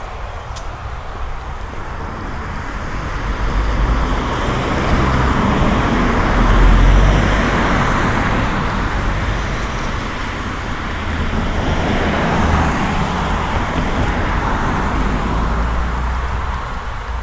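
A car driving by on a wet street: tyre hiss and a low engine rumble swell to a peak about halfway through, with a second, smaller swell later.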